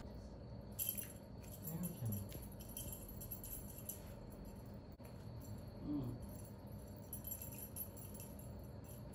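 Small metal bell on a feather teaser wand jingling in irregular little shakes as a cat bats at the toy.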